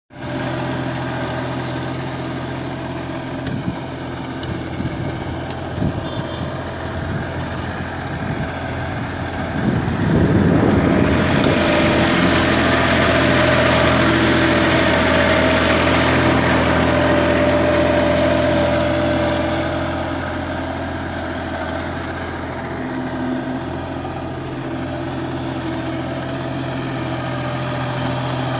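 Small Captain 8G 4x4 diesel mini tractor's engine running steadily while pulling a plough through the soil. It grows louder and rougher for about ten seconds from about a third of the way in, then settles back.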